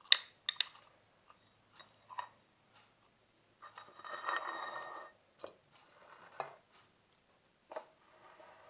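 Freshly made glue-and-borax slime being handled: scattered small sticky clicks and pops, with a squishing stretch lasting about a second near the middle.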